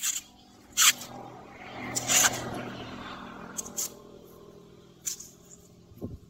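Green husk leaves being torn back from an ear of glutinous corn by hand: a series of crisp rips, about five or six, with rustling of the husk between them.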